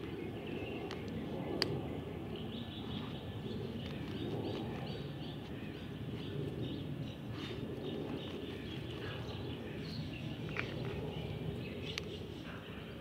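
Outdoor ambience: a steady low rumble of background noise with small birds chirping on and off, and a couple of sharp ticks.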